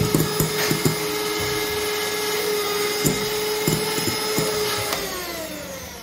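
Electric hand mixer running steadily, its beaters whisking eggs in a glass bowl with occasional clicks against the glass. About five seconds in it is switched off and the motor's whine falls in pitch as it winds down.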